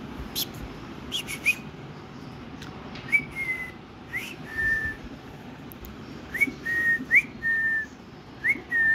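Repeated short whistled notes, each a quick upward slide followed by a short held note, heard about five times. There are a few sharp clicks in the first second or so.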